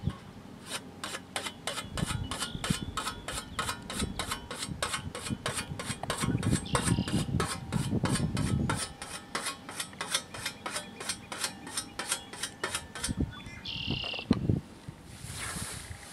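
Scythe blade being honed with a whetstone: quick, even strokes of the stone along the steel edge, about four a second, which stop about thirteen seconds in. Near the end comes the swish of the scythe cutting through grass.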